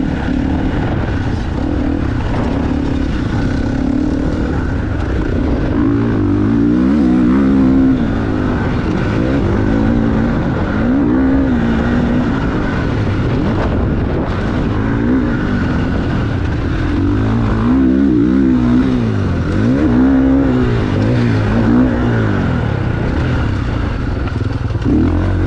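GasGas MC450 motocross bike's four-stroke single-cylinder engine being ridden hard, revving up and dropping back over and over as the rider works the throttle through the track. The pitch is fairly steady for the first few seconds, then rises and falls every second or two.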